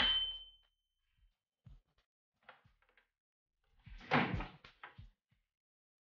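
Whirlpool microwave oven's running hum cuts off as its dial timer's bell dings once and rings out over about a second, marking the end of a test heating run on the repaired oven. A few faint clicks follow, and about four seconds in the door is pulled open with a clatter.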